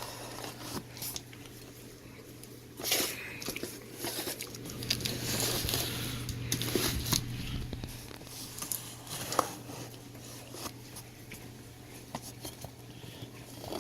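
A large cardboard box and its packaging being worked open by hand: irregular rustling, scraping and tearing with scattered sharp clicks and taps. A longer stretch of rustling runs from about four and a half to seven seconds in.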